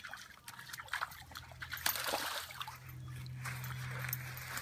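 A dog splashing and pawing through shallow, muddy creek water: a run of irregular small splashes and patters.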